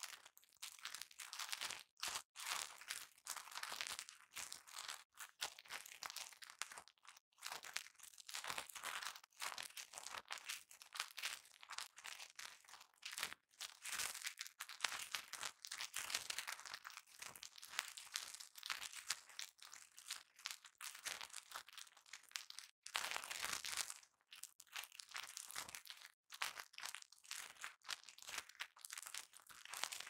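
Velcro (hook-and-loop fastener) rasping and crackling close to the microphone in repeated short strokes, with brief breaks between them.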